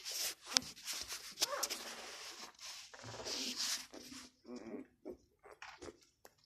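Newborn Labrador puppies whimpering and squeaking, with a rustling noise through the first four seconds and short cries after it.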